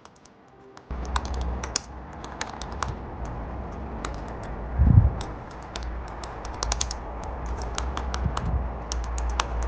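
Typing on an Apple Magic Keyboard (Touch ID model): a run of quick, irregular key clicks, starting about a second in, with a single louder low thump about five seconds in.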